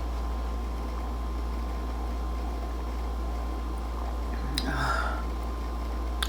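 Steady low background hum, with a click and a short soft noise about four and a half seconds in and another click near the end.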